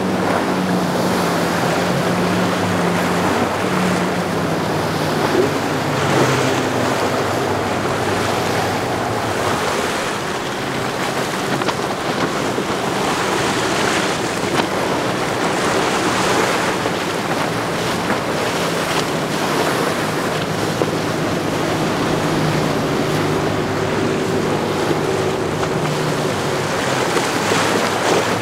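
Motorboat engines running as boats pass at speed: a steady low drone over the sound of wake and surf, with wind noise on the microphone.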